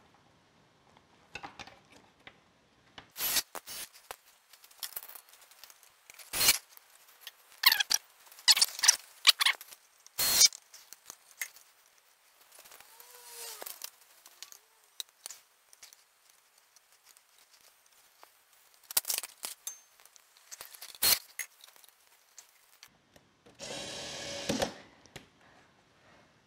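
Scattered sharp clicks and snaps of plastic pneumatic tubing being cut to length and pushed into push-to-connect fittings on a board of air regulators and solenoid valves, with a short burst of rushing noise near the end.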